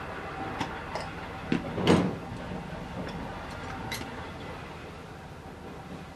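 Metal screw lid being twisted off a glass honey jar: a few light clicks, a short loud rasp of the lid turning on the glass threads about two seconds in, then another click.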